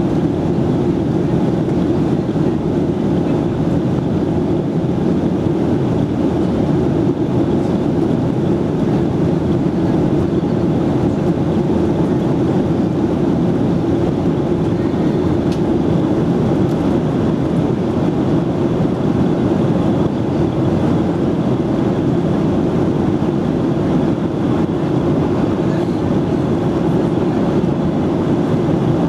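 Steady low roar of a Boeing 737 airliner in flight, engine and airflow noise heard inside the passenger cabin.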